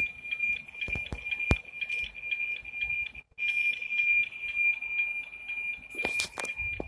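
NOAA 19 weather satellite's APT signal demodulated by a software-defined radio: a steady high tone with a regular tick-tock about four times a second, briefly cutting out about three seconds in. A few knocks about a second in and again near the end.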